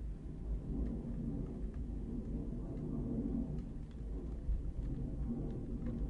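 Room tone inside an ice cream truck: a steady low rumble and hum, with a few faint ticks.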